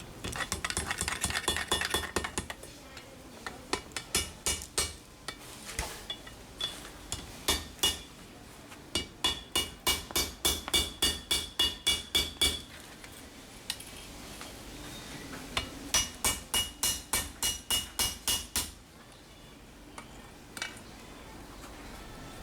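Forging hammer striking steel on an anvil, each blow ringing metallically. A quick flurry of blows at the start, scattered strikes, then two steady runs of about four blows a second, with pauses between.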